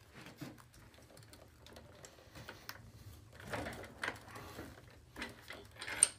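Light metallic clicking and rattling as a scooter's steering-stem nut is spun down its threads by hand, with a sharper click near the end.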